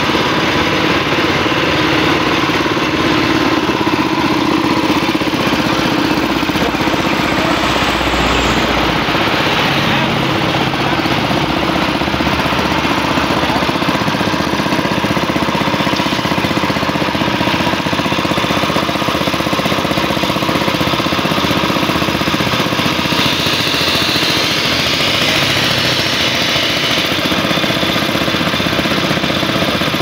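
Small single-cylinder engine running steadily at a constant speed, belt-driving a brass plunger pressure-washer pump.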